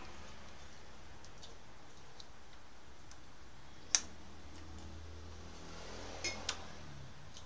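Sparse light metallic clicks from a motorbike's rear brake arm and rod as a toddler's hands tug at them. One sharp click about four seconds in is the loudest, with two smaller clicks close together near the end.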